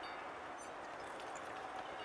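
Faint, steady outdoor background noise, an even hiss with no distinct events.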